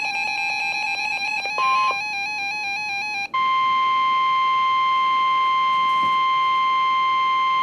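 A quick string of electronic tones stepping rapidly in pitch for about three seconds, then, after a brief break, the NOAA Weather Radio 1050 Hz warning alarm tone: one loud, steady, high tone signalling that a warning message is about to be broadcast.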